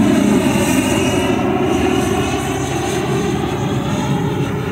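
The electric ducted fan of an RC jet model (JETFAN-120 PRO driven by a HET 800-73 motor) running in flight: a steady whine over rushing air. Its pitch bends slightly as the jet passes.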